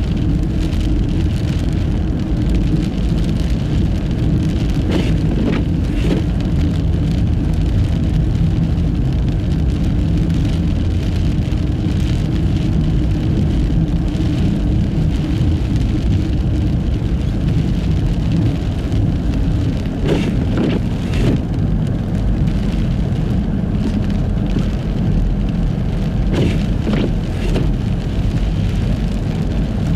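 Steady low rumble of a Nissan Fuga Hybrid's Dunlop studless tyres rolling over a snow-covered road, with a few brief knocks about a fifth of the way in and again later on.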